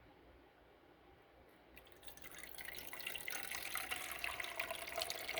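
Water being poured into a container. It starts about two seconds in and grows louder.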